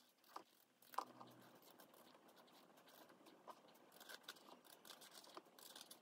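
Faint scraping and crisp cutting of a kitchen knife peeling the skin off a bottle gourd, in short irregular strokes with a sharper click about a second in.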